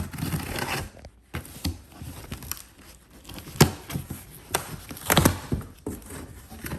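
Cardboard shipping box being handled and opened: irregular tearing and crinkling with scattered sharp knocks.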